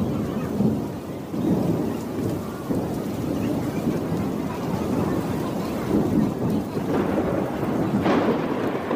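Heavy rainstorm: steady rain under a low rumble that swells and falls every second or so, with a brief sharper burst about eight seconds in.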